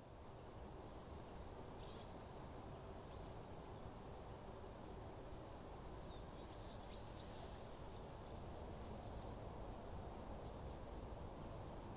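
Quiet woodland ambience: a steady low hiss with a few faint, short high chirps from a small bird, several of them in a run about halfway through.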